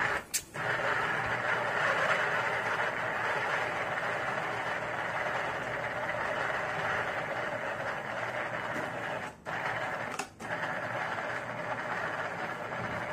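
Small electric food processor's motor running steadily as it grinds seasoned ground meat and fat into a fine paste. It cuts out briefly three times: about a third of a second in, then twice close together around nine to ten seconds in, as the button is released and pressed again.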